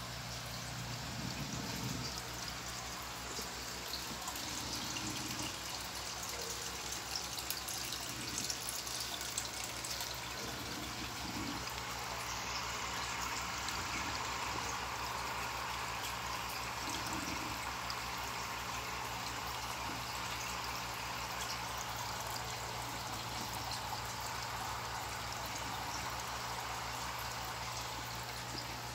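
Aquarium water trickling and bubbling steadily, with a low steady hum underneath.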